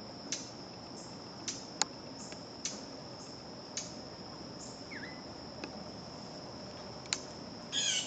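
Steady high-pitched insect trill with short, sharp chip calls about once a second. A brief falling whistle comes about five seconds in, and a louder, fuller call comes near the end.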